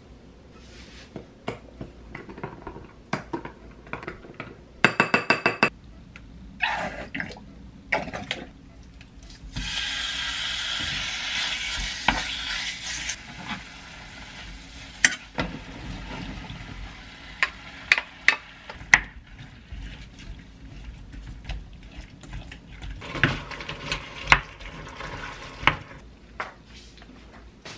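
Kitchen cooking sounds: a wooden spoon clinking against a glass mixing bowl and a quick run of short electronic beeps. A loud hiss follows for about three seconds, then meat sizzles in a frying pan as metal tongs turn it. Dishes clatter on the counter.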